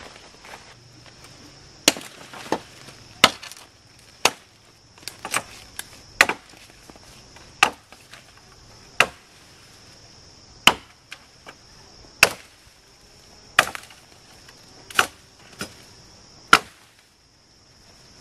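Wood being chopped with a blade: about fifteen sharp chops, irregularly spaced roughly a second apart, over a steady high-pitched drone.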